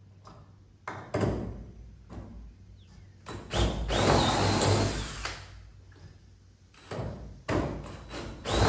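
DeWalt 20V Max cordless drill with a 3/16-inch bit drilling through aluminum diamond-plate cladding, in several runs: a short one about a second in, a longer one around the middle with a steady high whine from the motor, and another near the end.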